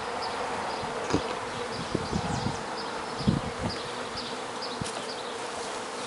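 Honeybees buzzing around a busy hive, a steady hum, with a few soft thumps.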